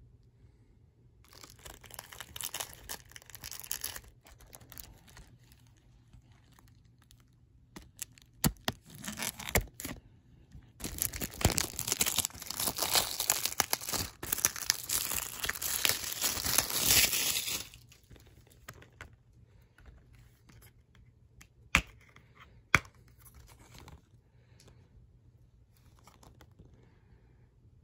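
Plastic shrink wrap being torn and peeled off a Blu-ray case, crinkling in patches and then continuously for several seconds. Two sharp clicks follow as the plastic case is snapped open.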